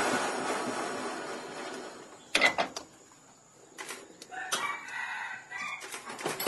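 A rooster crows for about a second and a half, in the second half, with a few sharp clicks and taps around it. A hiss at the start fades away over the first two seconds.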